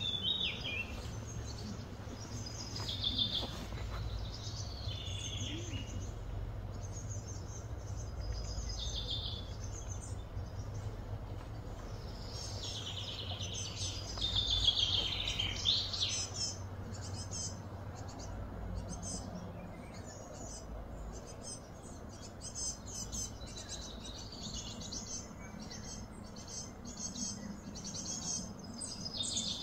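Several birds chirping and singing in short, scattered phrases, with a longer run of warbling song about halfway through as the loudest part, over a steady low rumble.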